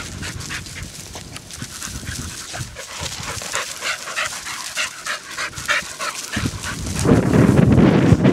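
Young Brittany spaniel panting hard in quick, short breaths close to the microphone. About seven seconds in, a loud, low rumble of wind on the microphone takes over.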